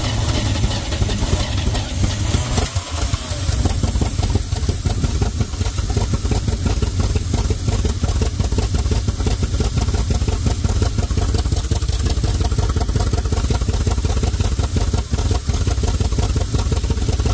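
Carbureted gasoline engine of a square-body dump truck that had sat for about ten years, running steadily right after catching on gas poured into the carburetor, with a brief dip in level a couple of seconds in.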